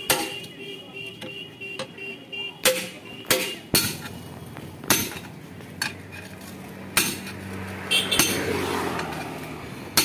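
Hammer striking steel tyre levers as a tractor tyre's bead is worked on its steel rim: several sharp metallic clanks at irregular intervals.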